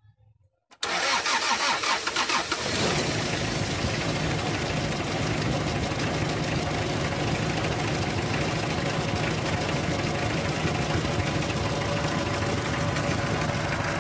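Toyota 2C four-cylinder diesel engine cranked by its starter, beginning about a second in, catching after about two seconds and settling into steady running. This is the first start after the high-pressure injector lines were bled of air.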